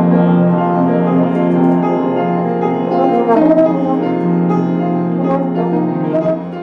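Trombone holding a long, low sustained note while a piano plays above it, in a slow, dark, improvised film score.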